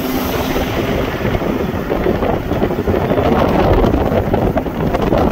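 Wind rushing over the microphone of a phone held in a moving vehicle, with road noise, getting louder about three seconds in.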